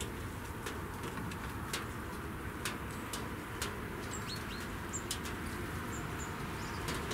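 Small birds chirping a few times with short high calls, mostly in the second half, over a steady low background rumble, with scattered light clicks.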